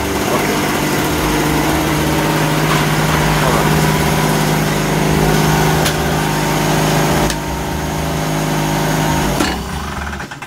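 Small Tiger portable petrol generator engine running steadily just after being started. It cuts off abruptly about nine seconds in.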